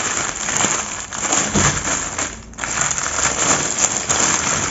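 Clear plastic bag crinkling and crackling as hands handle it and the small plastic packets of diamond-painting drills inside, with a short break about two and a half seconds in.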